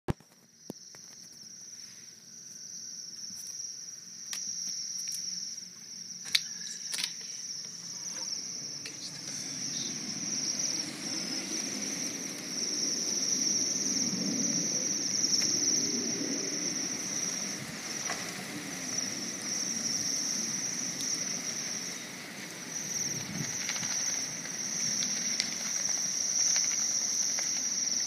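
A large flock of small birds perched together in a bare tree, calling all at once in a dense, continuous high-pitched chorus that swells over the first several seconds. A few sharp knocks come in the first seconds.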